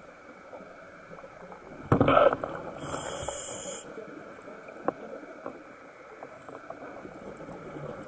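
Scuba diver's breathing heard underwater: a loud burst of exhaled bubbles about two seconds in, then about a second of hiss as air is drawn through the regulator, over low steady background noise with a few sharp clicks.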